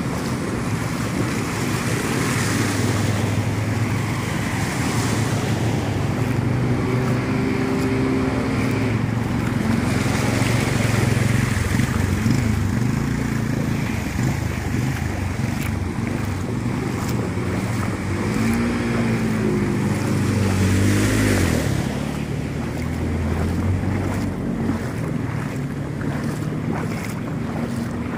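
Vehicles running through deep floodwater on a road: engine hum swelling and bending in pitch about a third of the way in and again around two-thirds of the way in, over a steady wash of moving and splashing water.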